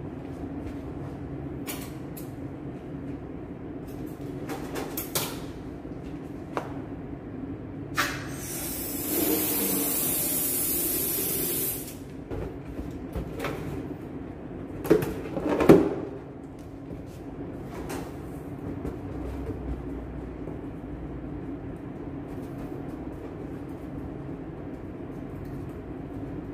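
Helium hissing from a tank's inflator nozzle into a latex balloon for about four seconds, over a steady low hum. Scattered clicks and knocks and a short, louder rub of the balloon being handled and tied come before and after the fill.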